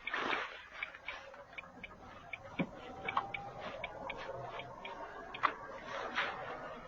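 Car turn-signal indicator clicking in a steady tick-tock rhythm, about one pair of clicks every three-quarters of a second, over faint vehicle running noise.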